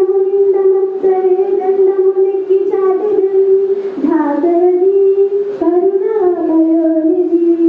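A child singing a Telugu padyam (verse) in a chanting melody, holding long notes close to one pitch with short breaks between phrases.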